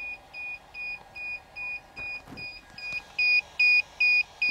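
DJI Phantom remote controller beeping without a break: short high beeps, about three a second, growing louder near the end. It is a warning the owner cannot explain, since the drone connects and flies normally; he suspects the controller needs calibrating.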